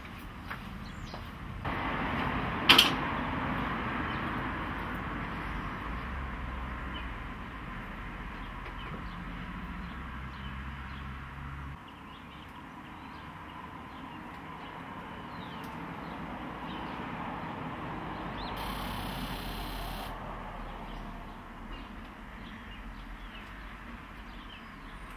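Car fuel system being tested with an injector tester. A sharp click sounds about three seconds in, then the electric fuel pump hums steadily, building rail pressure, and cuts off suddenly about twelve seconds in. Later comes a short hiss of about a second and a half as a fuel injector is pulsed and bleeds the pressure down.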